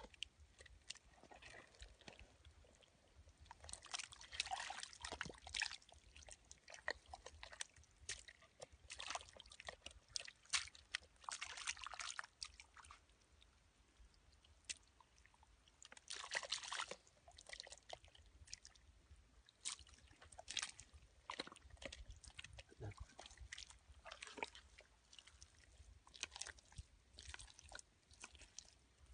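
Bare hands digging and scooping through wet mud, giving faint, irregular squelching and scraping in short bursts.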